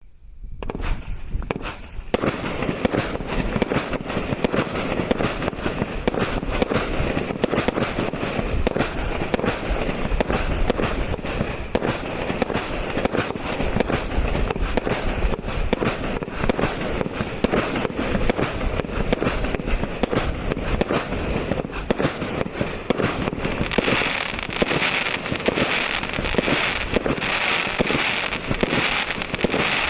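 Zeta 81-shot consumer fireworks battery (cake) firing, its tubes launching shot after shot in rapid succession as a continuous stream of bangs. The firing starts about half a second in and becomes brighter and denser for the last several seconds.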